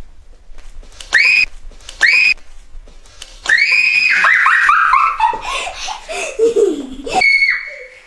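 A young girl shrieking: two short high-pitched shrieks, then a long scream that breaks into falling, pulsing cries that turn into laughter.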